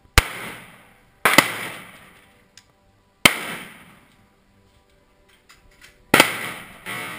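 AR-15-style rifle fired slowly, about five shots at irregular intervals, two of them less than a second apart near the end. Each crack trails off in a ringing echo.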